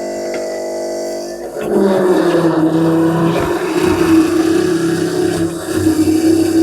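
An engine running: a steady drone that grows louder about a second and a half in, then holds at the higher level.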